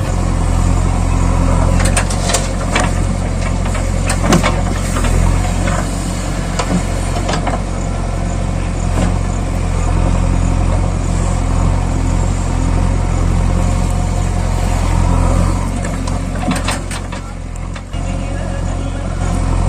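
A vehicle engine running steadily with a low, even hum, with a few sharp clatters or knocks over it.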